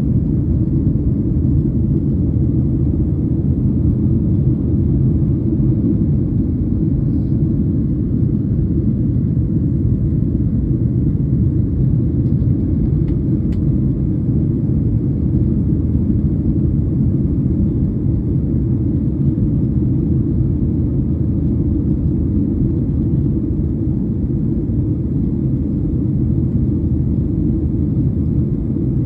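Jet airliner cabin noise in flight, heard from a window seat: a steady deep rumble from the engines and airflow, unchanging throughout.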